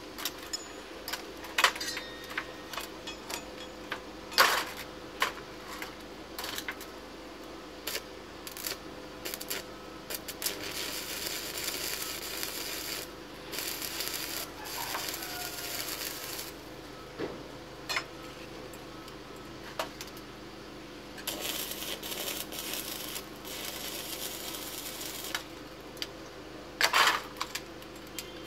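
Stick (arc) welding on a steel exhaust pipe: sharp metallic clicks and taps in the first third, then the arc crackling steadily for several seconds from about ten seconds in, and again in shorter runs near the end.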